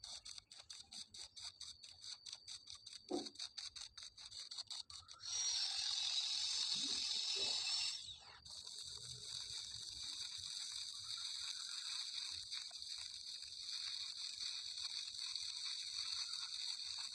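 Electric arc welding on checker-plate steel: a rapid series of ticks for the first five seconds, then the steady crackling hiss of the arc, louder for a few seconds, breaking off briefly about eight seconds in and running again.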